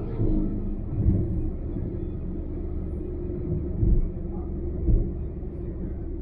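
A car travelling on a highway: a steady low rumble of road and engine noise, broken by several short, dull thumps, two close together at the start and two more about four and five seconds in.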